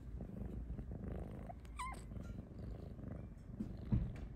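Snow Lynx Bengal cat purring steadily, with a brief thin high rising squeak about two seconds in and a soft bump near the end.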